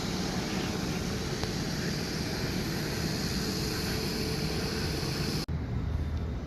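Boeing 757-200's jet engines running: a steady noise with a faint high whine. Near the end it cuts off abruptly to a duller, lower rumble.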